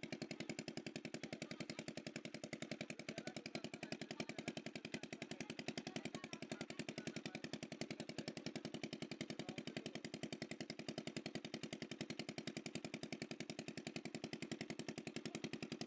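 A small engine running steadily with an even, rapid chugging of about seven beats a second.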